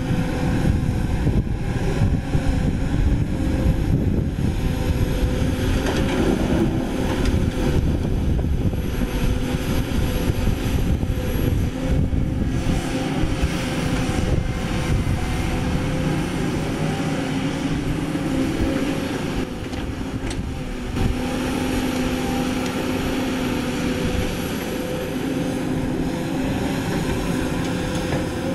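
Caterpillar 320D excavator's diesel engine running at working speed, a steady drone whose lower tones rise and fall as the arm and bucket move earth.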